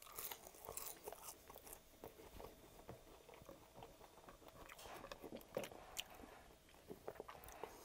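Quiet, close-miked chewing of French fries dipped in ketchup: soft, wet mouth sounds with small, irregular crunches.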